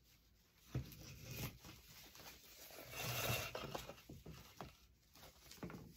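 Ribbon rustling and sliding as it is pulled off a spool and pinched into loops on a bow maker. A light knock comes about a second in, and a louder rustle about three seconds in.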